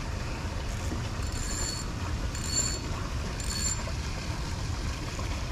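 Steady low outdoor rumble and hiss, with three short high-pitched chirps about a second apart.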